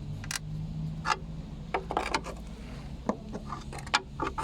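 Hyundai Accent front suspension creaking and clicking as it is pushed and loaded by hand: a string of short, irregular creaks whose source has not yet been found. A low steady hum runs underneath.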